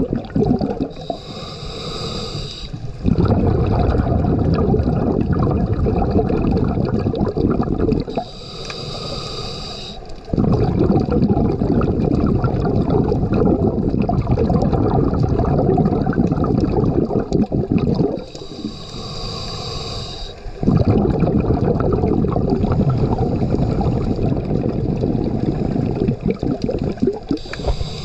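Water churning against an underwater camera housing while swimming, a steady low muffled rumble. About a second in, about eight seconds in, about eighteen seconds in and near the end, it drops for roughly two seconds to a thinner, higher hiss.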